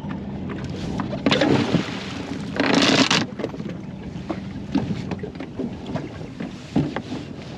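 Fluke anchor thrown off the bow of a small aluminium boat: a loud splash about three seconds in, then the anchor chain and rope knocking and paying out over the bow, with wind on the microphone.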